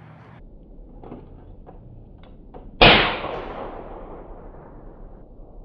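A single rifle shot about three seconds in, with a long echoing tail that dies away over a second or more, after a few faint clicks.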